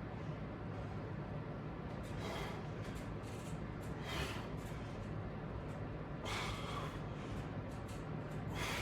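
A person exhaling forcefully while exercising, four hard breaths about two seconds apart in time with the repetitions, over a steady low hum.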